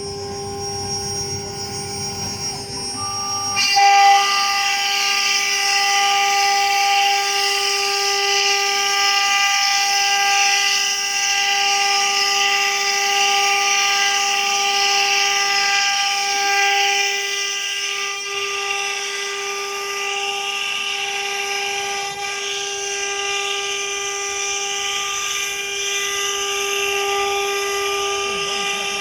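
CNC wood router spindle running at speed: a steady high whine with overtones. A low rumble underneath cuts off about four seconds in, with a brief loud peak, after which a hissy high noise rides along with the whine.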